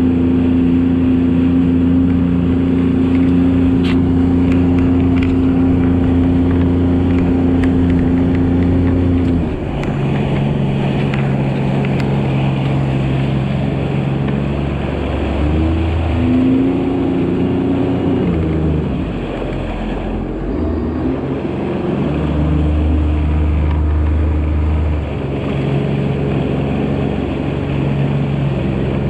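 Sea-Doo RXT-300 jet ski's supercharged three-cylinder engine running under way, steady at first, then dropping in pitch about a third of the way in as the throttle eases. Later the engine note rises and falls a few times before settling. A steady rushing hiss runs underneath.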